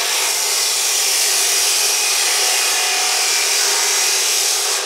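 Ridgid abrasive chop saw cutting through steel square tubing: a loud, steady grinding hiss of the wheel biting the metal.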